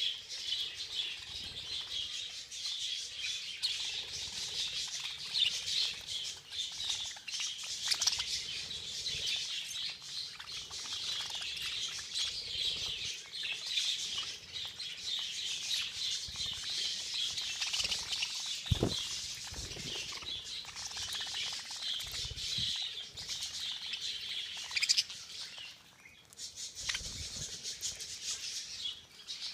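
A flock of budgerigars chattering and twittering continuously, with scattered clicks and wing flaps, briefly thinning out near the end.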